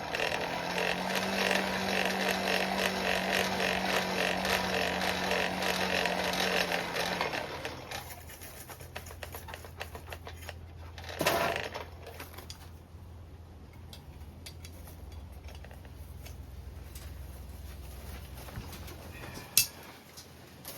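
Coal forge's electric air blower running with a steady rush of air, then shut off about seven seconds in, leaving a low hum. A single metal clank follows a few seconds later, and a short click near the end.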